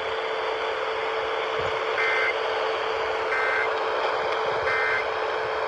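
Three short EAS SAME end-of-message data bursts, each a quick two-tone electronic buzz, about a second and a third apart, over weather-radio hiss and a steady hum. They signal the end of the flash flood warning message.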